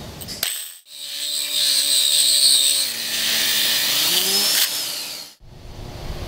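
AGP electric tile core drill running a 40 mm diamond core bit in first gear, dry-cutting through ceramic wall tile. A steady motor hum under a harsh high grinding, starting about a second in and cutting off abruptly near the end.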